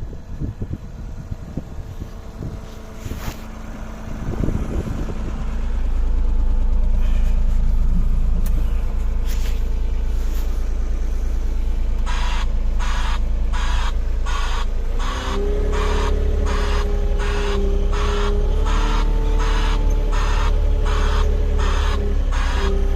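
A motor-driven machine starts and runs with a loud, steady low hum. Partway through, a regular pulsing sets in, about one and a half beats a second, over the hum.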